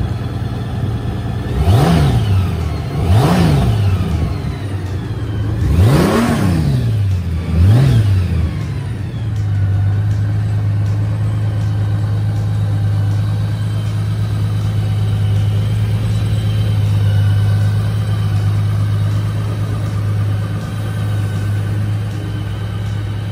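Honda GoldWing Tour DCT's flat-six engine blipped four times, each rev rising and dropping back quickly, then settling into a steady idle about nine seconds in.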